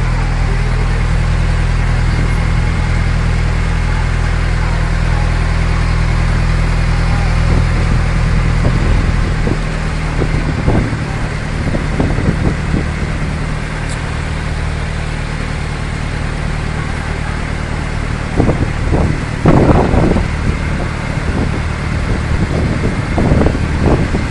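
Small boat's engine running steadily under way, with water and wind noise. The engine note drops and gets a little quieter about ten seconds in, and a few brief louder bursts of noise come over it in the second half.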